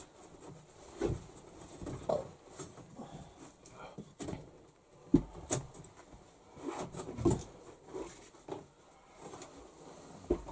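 Irregular knocks and scrapes of bricks being handled and fitted into a brick stove's firebox, with several sharp clacks a second or so apart through the middle.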